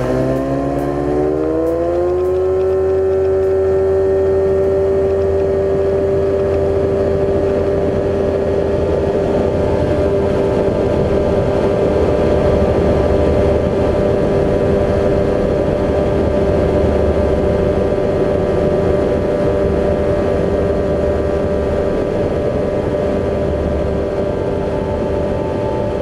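Ultralight trike's engine and pusher propeller rising in pitch over the first two seconds as the throttle opens, then holding a steady high drone at high power.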